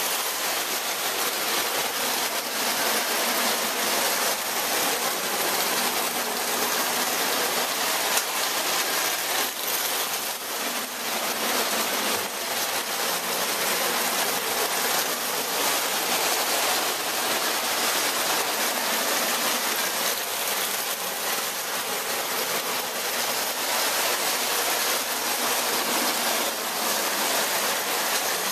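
Several tinplate toy electric trains running together on metal tubular track: a steady rattling rush of wheels and electric motors, with faint clicks over the rail joints.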